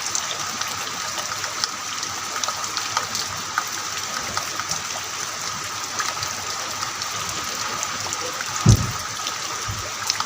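Heavy rain falling steadily, a dense hiss scattered with the ticks of individual drops, and one short low thump near the end.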